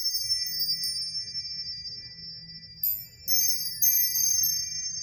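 Crystal bar chimes struck, clear high ringing notes that sustain and overlap. A few notes sound at the start, then three more come in quick succession about three seconds in.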